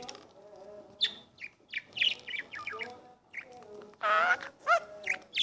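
Pet budgerigar chirping and warbling: a run of short, quick chirps, with a louder, longer call about four seconds in.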